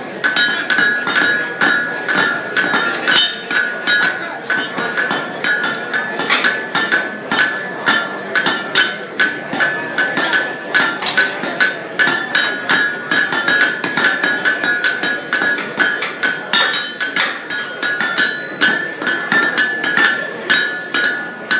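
Blacksmith's hammer striking hot steel on an anvil in rapid, steady blows, about three a second, with the anvil ringing under each blow.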